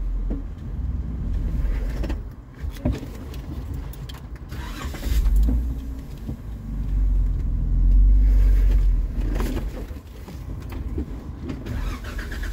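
Jeep Wrangler engine running at low speed, heard from inside the cab, its rumble swelling twice as throttle is applied. Scattered short knocks and clunks come from the Jeep crawling over rough ground.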